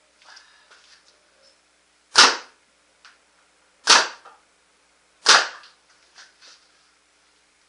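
Proto Matrix Rail paintball marker firing three single shots about a second and a half apart, each a sharp pop with a short decay, with a few faint knocks between them. They are among the last shots on a nearly spent air tank at the end of an efficiency test.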